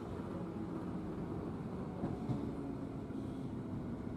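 Interior noise of a 103-series (1500 subseries) electric commuter train car under way: a steady low rumble of the running train with a couple of light knocks about two seconds in.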